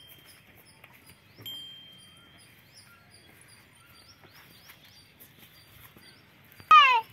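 Small birds chirping faintly and repeatedly in the background, with a thin, steady whistle held for under a second about one and a half seconds in. Just before the end, a loud, brief cry falling in pitch, the loudest sound here.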